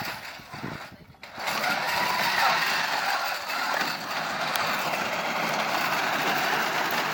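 FIRST Robotics Competition robot drivetrains running on asphalt: electric motors and gearboxes whirring with wheels scrubbing. The sound drops away briefly about a second in, then picks up again and runs steadily.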